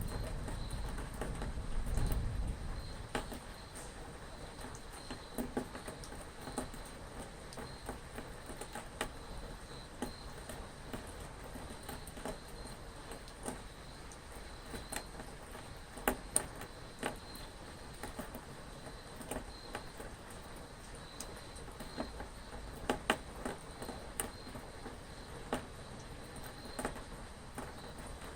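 Steady rain with irregular drops pattering and dripping close by. A low rumble fades out in the first few seconds.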